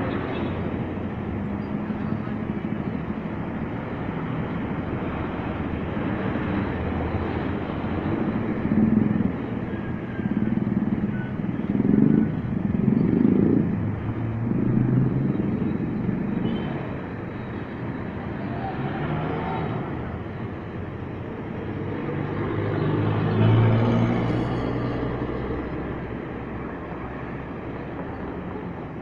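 Traffic at a city intersection: minibuses, cars and a small box truck driving past, a steady mix of engines and tyres. Several louder passes come through the middle and another near the end.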